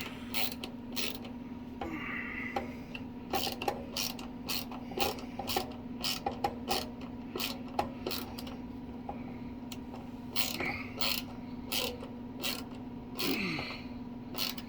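Irregular clicks, knocks and ratchet-like clicking from hand tools and metal hardware being worked while assembling a sewing machine table, over a steady low hum.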